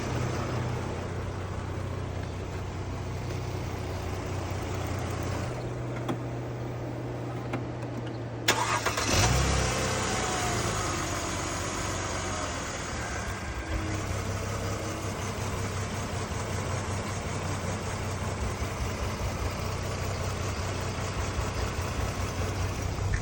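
Mercedes-Benz GLK 350's V6 engine idling after a change of spark plugs and ignition coils, run to check for a cylinder 2 misfire. About eight seconds in there is a sharp click and a brief rise in engine sound, then the idle goes on.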